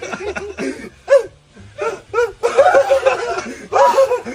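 People laughing in quick repeated ha-ha sounds, loudest from about halfway in to near the end.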